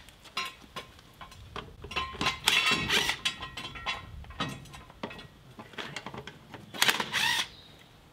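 A cordless power tool spinning lug bolts on a VW Beetle's wheel, in two short whirring bursts, one about two and a half seconds in and one near the end. Short clicks and knocks come in between.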